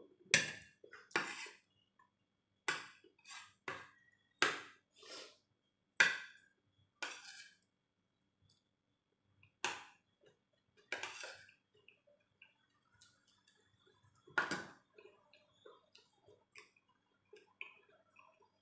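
A metal spoon clinking and scraping against a ceramic plate while eating rice: about a dozen sharp clinks and short scrapes at uneven intervals, with only small faint sounds toward the end.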